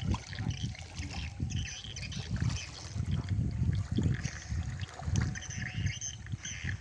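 Water trickling and splashing as a fishing longline is pulled hand over hand out of a river into a small wooden boat, over irregular low rumbles.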